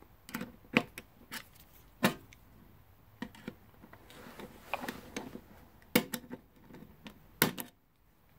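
Small metal tool poking and scraping in a toolbox lock's keyway: a handful of sharp, irregular clicks and light scrapes with short quiet gaps between them.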